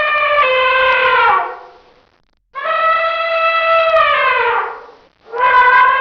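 Elephant trumpeting: long held calls, each dropping in pitch as it fades. One call ends about a second and a half in, a second runs from about two and a half seconds to nearly five, and a third starts near the end.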